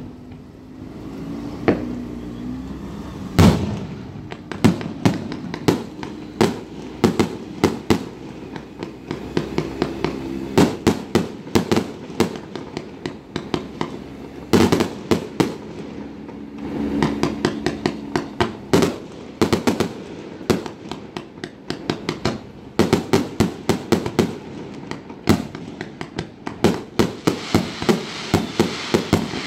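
Fireworks display: a rapid, irregular run of sharp bangs and crackles as shells are launched and burst, coming in dense clusters with a few louder single booms.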